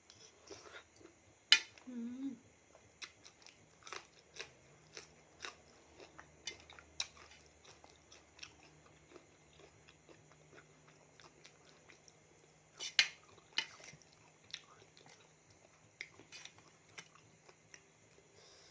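Close-up wet chewing and mouth smacking of a person eating a spicy seafood salad, with short clicks two or three times a second and two louder sharp smacks, one near the start and one about two-thirds of the way through.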